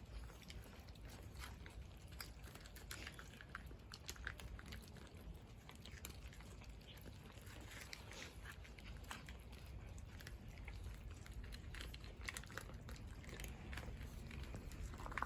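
Cats chewing food: many small irregular crunching clicks, over a steady low background hum.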